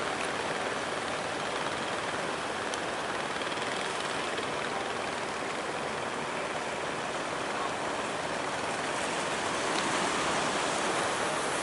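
Steady, even rushing noise of sea water and wind, with no clear engine note from the passing fishing boats.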